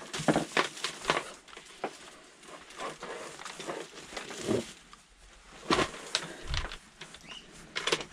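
Gloved hands unwinding the orange power cord from an electric strimmer: rustling of the flex with irregular light clicks and knocks as the cable and plug rattle against the plastic body.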